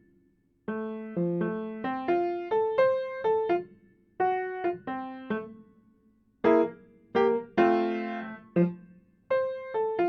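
Piano played slowly in short phrases of separate struck notes, each phrase followed by a short pause, with a fuller chord about eight seconds in. It is a first, careful sight-reading of a bebop-style beginner étude.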